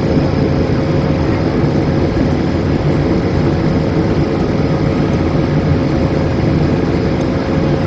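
Cabin noise inside an Airbus A220-300 airliner: the steady rush of airflow and its Pratt & Whitney PW1500G turbofan engines, with one steady humming tone running through it.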